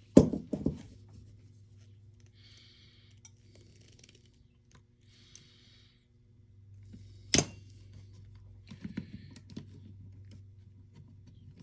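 Small clicks and short scratchy rubs of hand tools working the loose red positive wire connector in an airsoft gun's wiring, crimping it tighter. A sharp click stands out about seven seconds in, over a faint steady low hum.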